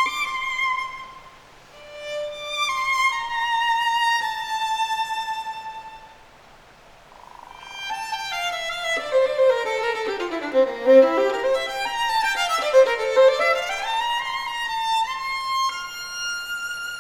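Solo violin playing: held notes, then a slow falling phrase, a short pause, and a quick run of notes that sweeps down and back up, ending on a long high note.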